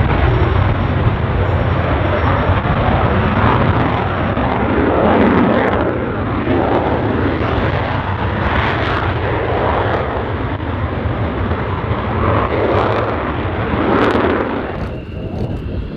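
Eurofighter Typhoon jet taking off, its twin engines at take-off power: loud, steady jet noise that swells in surges and drops away near the end.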